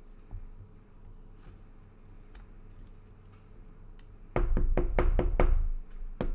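Knocks and taps on a tabletop as trading-card packs and cards are handled. Faint clicks come first, then about four seconds in a quick run of about five loud knocks, and one more near the end.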